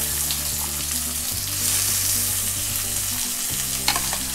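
Chopped onions sizzling in hot mustard oil in a kadhai, a steady frying hiss, with a single sharp click near the end.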